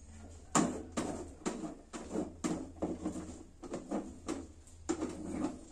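Spatula scraping and knocking against an aluminium steamer pot in short strokes, about two a second, as cooked corn rice is scooped and stirred.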